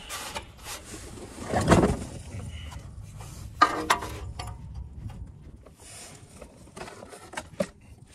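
Scattered light metallic clicks and scrapes as an oxygen sensor is threaded by hand into the exhaust of a car, from underneath. The loudest sounds are a dull knock about two seconds in and a sharp metal tap near four seconds.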